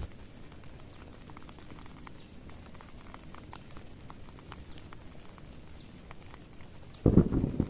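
Scattered raindrops and drips pattering, with a steady pulsing insect trill high above. About seven seconds in, a sudden much louder low thudding noise starts.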